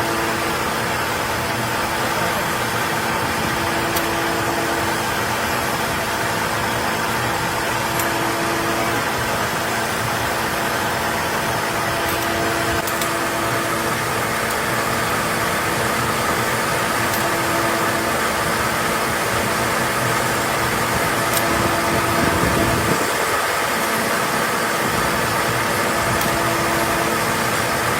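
Steady hum and whir of factory machinery running, with a constant mid-pitched tone under a dense mechanical noise, and a brief louder rush near the end.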